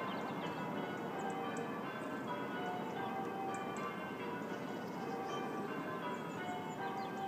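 Church bells ringing continuously, with many bell tones overlapping and sustaining into each other.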